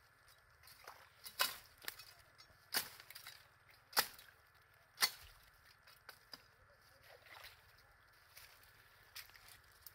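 Sharp woody knocks and snaps, about five loud ones in the first five seconds and fainter ones after, from a wooden-handled hand tool and hands working among mangrove roots and branches while digging at a mud crab hole.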